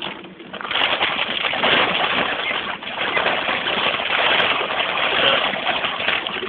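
Torrential rain drumming on the car's roof and windscreen, a dense steady hiss heard from inside the cabin. It dips briefly near the start, then stays heavy.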